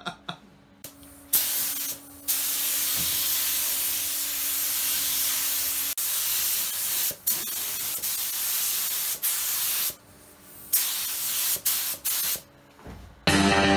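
Compressed-air hiss of a gravity-feed spray gun spraying a motorcycle fuel tank, in a long pass of several seconds and a few shorter bursts with brief stops between. Music with guitar comes in near the end.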